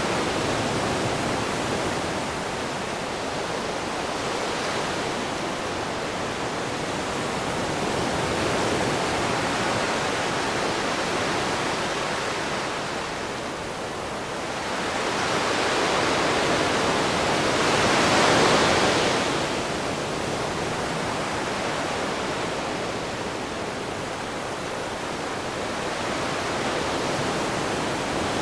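Ocean waves washing onto a shore in a continuous hiss, swelling and easing slowly, with one larger wave breaking about two thirds of the way through.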